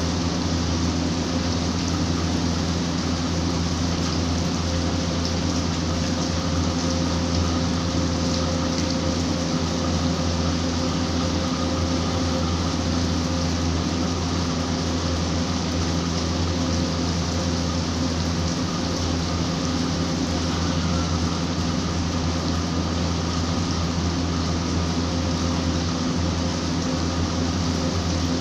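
Steady rain falling, an even, continuous hiss, with a constant low hum beneath it.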